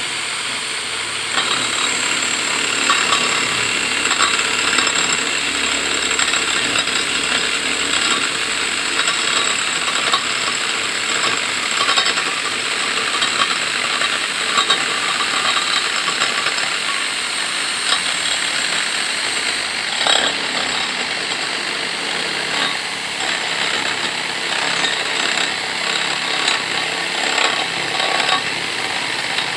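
Electric drill spinning a wooden dowel as a makeshift lathe while a chisel is held against the turning wood: a steady motor whine under the rough, uneven scraping of the blade cutting the wood, with frequent irregular knocks.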